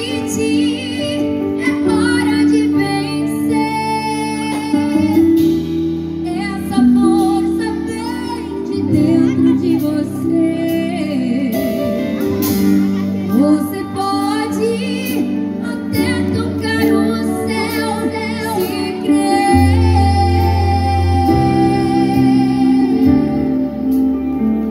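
A live pop band playing on stage, with electric guitars, bass, drums and keyboard under a woman singing.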